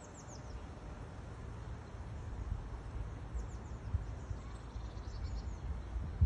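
Low rumble of wind on the microphone, with faint high chirps of small birds in the background: a few clusters of short, quick, falling notes. A single sharp thump comes right at the end.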